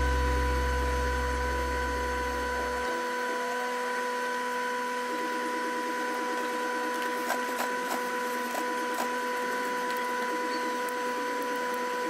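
Industrial sewing machine running with a steady mechanical hum. A few faint clicks come through in the middle.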